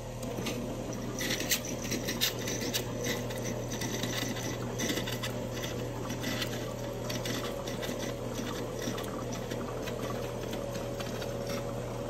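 Water spraying from a portable shampoo bowl's hand sprayer and splashing into the basin around the drain, growing stronger about a second in, over the steady hum of the bowl's small electric water pump.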